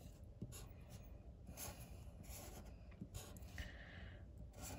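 Red Sharpie fine-point felt-tip marker drawn across a scratch-off lottery ticket's card surface in a few faint, short strokes.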